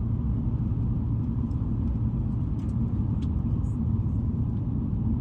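Steady low road and engine rumble of a car being driven, heard from inside.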